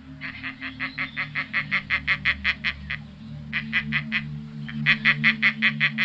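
An animal calling in rapid runs of short nasal pulses, about six or seven a second: a long run, a brief one, then another, over a steady low drone.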